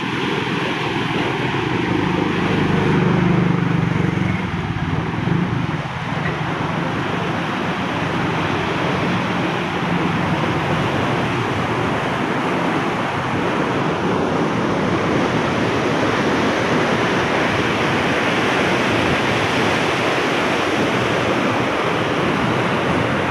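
Water rushing and churning through the sluice gates of a canal head regulator, a steady roar of falling water, with a low rumble that swells and fades over the first ten seconds or so.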